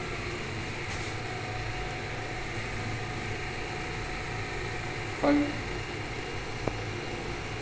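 Steady low kitchen hum with a light hiss, broken by one short louder sound about five seconds in and a faint click a little later.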